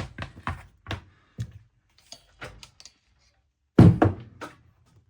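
Knocks and taps of an iPad Pro's screen being pressed and handled as it is seated back onto its frame, with one loud thump a little under four seconds in.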